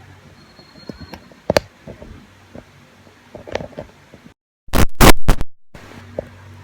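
Handling noise from a lapel mic and its connector: scattered knocks and scrapes. About four seconds in, the sound cuts out entirely, then there is a short burst of very loud crackling pops, the typical noise of a mic plug going into a phone's jack, before it cuts out again.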